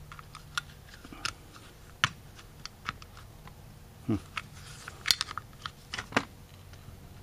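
Irregular metallic clicks, taps and scrapes of a small screwdriver working inside the cast secondary diaphragm housing of an Autolite 4100 carburetor, prying at the diaphragm. A few louder knocks come about two, five and six seconds in.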